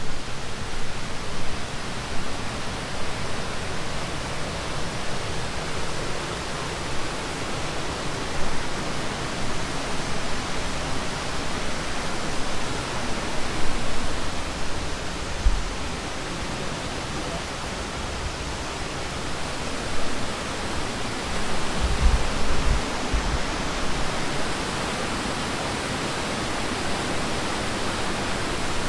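Waterfall's steady rush of falling water. A few short low thumps come through about halfway and again about three quarters of the way in.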